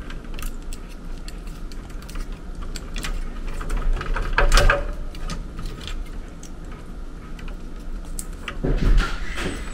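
Small clicks and rattles of electrical wires and push-on spade connectors being handled and fitted on an HVAC air handler's control board, with louder handling noises about four and a half seconds in and again near the end, over a steady low hum.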